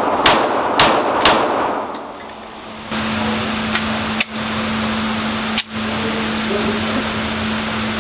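FN 509 pistol fired three times in quick succession, about half a second apart, each shot ringing out. From about three seconds in a steady hum is heard, broken by two sharp clicks.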